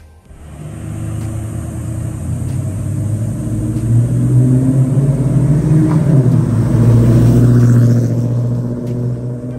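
Chevrolet Suburban V8 with long-tube headers, no catalytic converters and a Magnaflow exhaust with a built-in X-pipe driving past: a deep exhaust rumble that builds as the truck approaches, is loudest a little past the middle, then eases off as it goes by.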